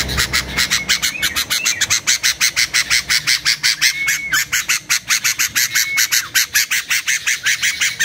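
Caged songbird calling in a fast, even chatter of sharp notes, about six a second, with two short clear whistles about four and six seconds in.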